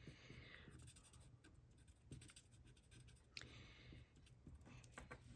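Faint scratching of a Stampin' Blends alcohol marker's bullet tip colouring on cardstock, in several short separate strokes.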